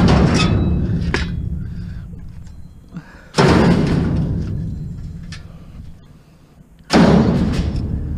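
Scrap metal being thrown into a truck's metal bed: two loud crashes about three and a half seconds apart, each ringing out slowly over a couple of seconds, with the ring of a similar crash dying away at the start.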